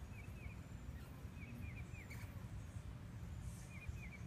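Outdoor background with a steady low rumble and faint high chirps in short runs of three or four, heard three times.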